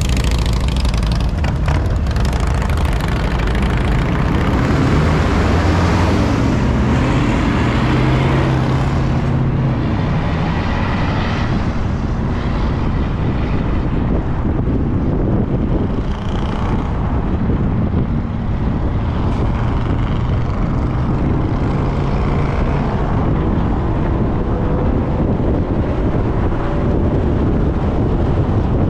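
Car driving at highway speed: steady tyre and road noise, with a low engine drone in the first several seconds.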